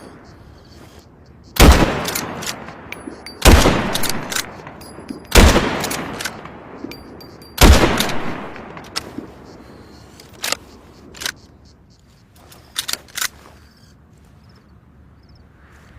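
Remington 700 BDL bolt-action rifle firing four shots about two seconds apart, each followed by a long echoing decay. Several quieter sharp metallic clicks follow later.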